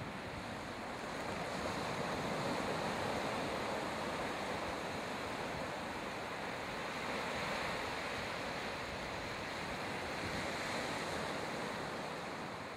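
Ocean surf breaking on a sandy beach: a steady wash of noise that swells and ebbs as the waves come in.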